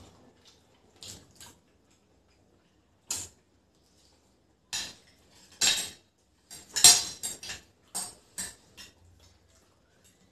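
Metal forks and spoons clinking and scraping on ceramic dinner plates while eating noodles, in scattered short clinks with pauses between, busiest and loudest about seven seconds in.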